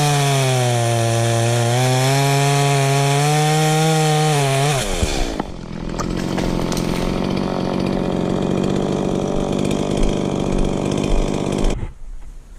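Two-stroke chainsaw running at high revs with its pitch wavering under load, as it does while cutting wood. About five seconds in the throttle is released and the engine drops to a lower running sound, then cuts off suddenly near the end.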